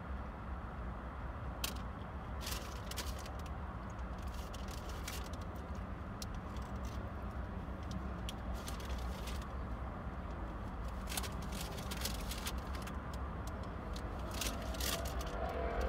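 Road traffic passing, heard from inside a car: a steady low rumble of cars going by, with scattered sharp clicks and a brief pitched engine note near the end.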